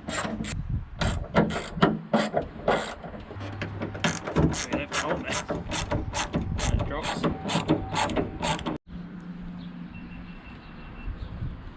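Hand ratchet and tools clicking and knocking in quick, irregular strokes as bolts are worked. It stops abruptly about three-quarters of the way through, leaving a quieter background.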